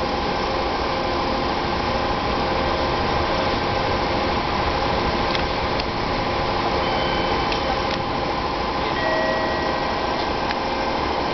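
A 485-series electric train standing at the platform, its on-board equipment running with a steady hum, with a few faint ticks partway through.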